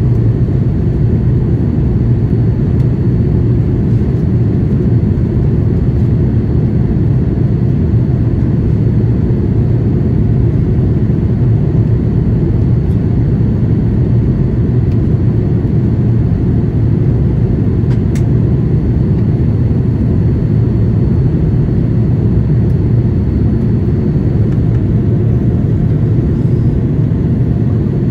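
Steady cabin noise of a Boeing 787-8 in flight, heard from a window seat: a loud, even rumble of engines and airflow. A faint steady high whine runs underneath, and there is a single brief click about two-thirds of the way through.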